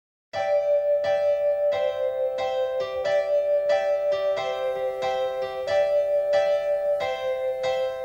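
Electric piano playing steady repeated chords, a new chord struck about every two-thirds of a second, with no voice yet.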